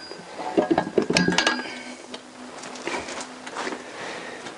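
Metal clinks and light knocks as a Honda CBR1000F crankshaft and its drive chains are lowered into the aluminium crankcase half. Several sharp clinks come close together in the first second and a half, then a few lighter ones follow.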